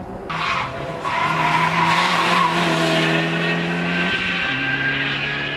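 Rally car passing at speed, its engine held at high, steady revs over loud tyre and road noise; the engine note drops about four seconds in.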